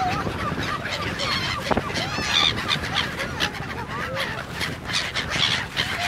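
A flock of gulls calling all around, many short overlapping cries, some rising and falling in pitch, over a steady rush of wind.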